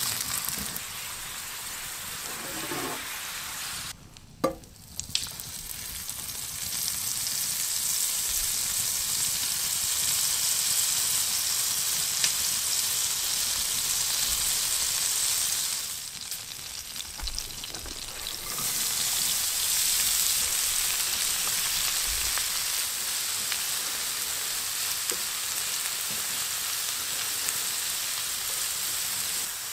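Food frying in a black iron skillet on a wood-burning tent stove: a steady sizzle of potato slices, then butter and onions with mushrooms, with a wooden spatula stirring and scraping the pan. The sizzle drops quieter briefly twice, about four seconds in and again about sixteen seconds in.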